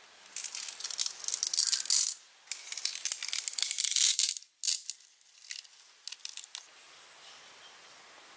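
Thin wooden sticks of a lashed stick frame rattling and scraping as they are handled and fitted, in dense crackly bursts for about four seconds, with a couple of light knocks, then only faint rustling.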